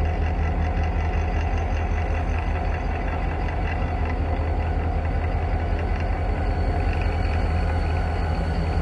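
Diesel passenger train running with a steady, even low rumble.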